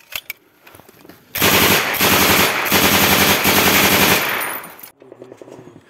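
Machine gun on a bipod firing one long burst of rapid shots, starting about a second and a half in and lasting about three seconds.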